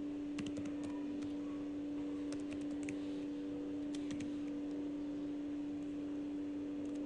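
Computer keyboard typing: three short runs of key clicks in the first half, over a steady low hum.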